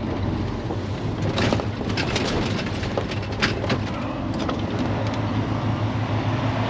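A semi truck's diesel engine running steadily while driving, heard from inside the cab, with a low drone and scattered short rattles and clicks.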